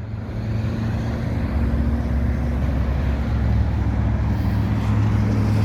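Diesel engine of a Komatsu PC138USLC excavator running at a steady speed, a low even hum that grows gradually louder.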